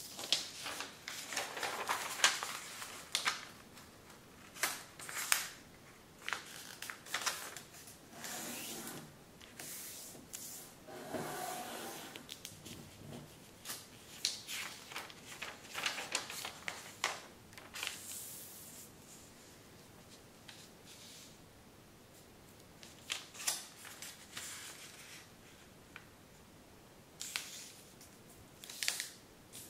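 A large sheet of kami origami paper being handled and folded, rustling and crinkling in short crisp bursts as folds are made and creases pressed flat. There is a quiet pause about two-thirds through, then a few more rustles near the end.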